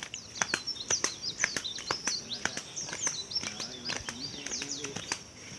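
Small birds chirping in quick, varied short calls over a steady high-pitched insect drone, with frequent sharp clicks throughout.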